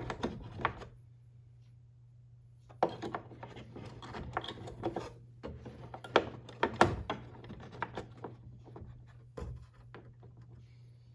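Two batteries being fitted into a clock chime unit's battery holder: irregular clicks, knocks and rubbing of handling, loudest near the start and twice more around the middle, over a steady low hum.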